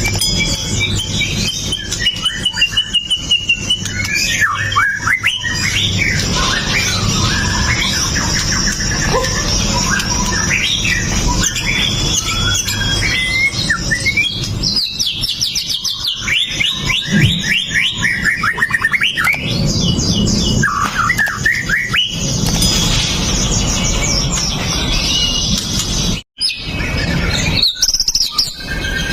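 White-rumped shama (murai batu) singing a long, varied song of rapid trills, whistles and sharp notes, breaking off for an instant near the end.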